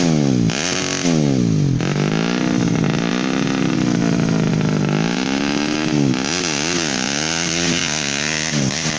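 Honda Win trail conversion running a Yamaha Jupiter Z single-cylinder four-stroke engine, revved over and over: quick throttle blips rising and falling, a slower swell and wavering in the middle, then a run of short blips near the end.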